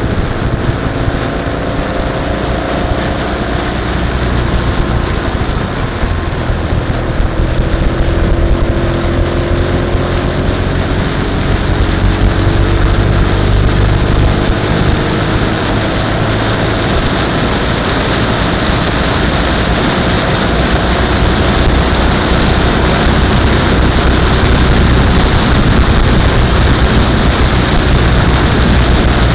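Motorcycle riding at road speed on a wet road: steady rush of wind and road noise with the engine's drone underneath, its pitch shifting in the first ten seconds or so.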